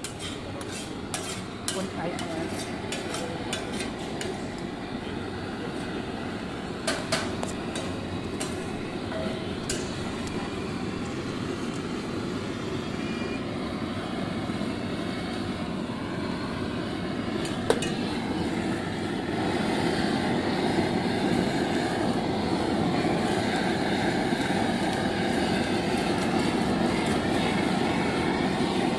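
Handheld gas blowtorch fed by a hose, its flame hissing steadily and getting louder about two-thirds of the way through as it plays on the cheese. A few sharp metal clicks come in the first seconds.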